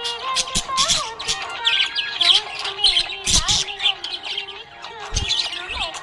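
Budgies chirping rapidly and continuously over background music with a gliding melody.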